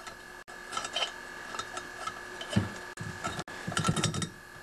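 Scattered metal clicks and light knocks of a valve spring compressor and valve spring being pushed into the valve chamber of a small-engine block and locked over the valve, with a busier run of knocks about four seconds in.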